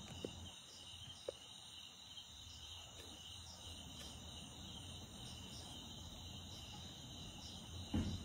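Crickets chirping steadily in the night over a low hum, with two faint clicks in the first second and a half and a soft low thump near the end.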